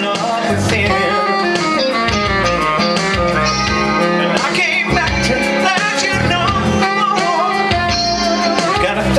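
Live blues-rock music: electric guitar and saxophone playing over a steady beat, with a melodic lead line.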